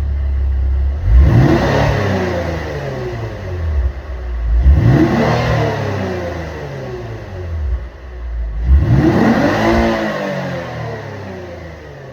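Lexus IS350's 3.5-litre V6 exhaust, the engine idling and blipped three times, each rev rising sharply and falling back to idle over a couple of seconds.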